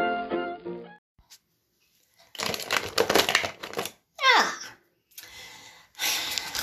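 Music ends about a second in. After a brief silence, paper pages rustle and turn in bursts, with a short falling vocal sound in the middle.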